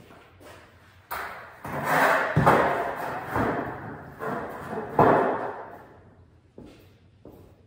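Curved sheet-metal outer panel of a wax melter clanging and rattling as it is handled and set down, a series of loud metallic knocks with ringing tails; the last loud knock comes about five seconds in, then only light handling noise.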